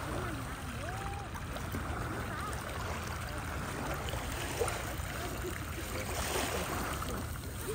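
Steady rushing of Lake Superior waves and water at the shore, mixed with wind noise on the microphone.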